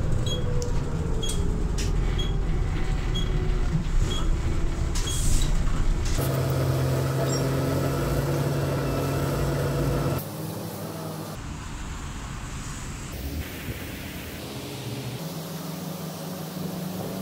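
City bus running, heard from inside near the front: engine drone and road noise, with a light tick about once a second for the first few seconds and a steady engine hum after that. About ten seconds in it cuts to quieter, steady traffic noise.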